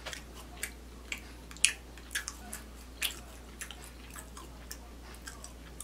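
A man chewing a mouthful of garlic knot with his mouth closed: soft clicks at an uneven pace, about two a second, over a faint low hum.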